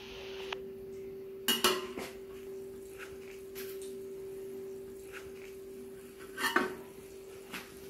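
Cookware clinking and clattering at a kazan (cauldron) of steaming plov covered with an upturned bowl: a handful of separate knocks, the loudest about six and a half seconds in. A steady faint hum runs underneath.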